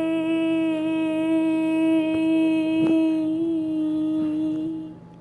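A voice holding one long, steady sung or hummed note for about five seconds, then stopping near the end, with a brief click about three seconds in.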